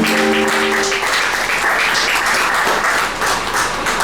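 Audience applauding, a dense patter of many hands clapping, with a few short held tones over it in the first second.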